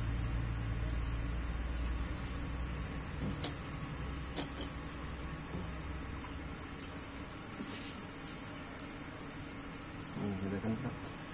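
Steady, high-pitched insect trilling, with a low hum that fades out about two seconds in and a few faint clicks.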